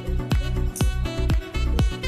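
Background music with a steady electronic dance beat, about two beats a second, over a heavy bass line and a melody.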